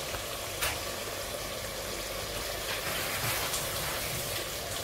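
Frozen molokhiya and chicken pieces sizzling in a hot pot over a gas flame, a steady hiss with one sharp click about half a second in.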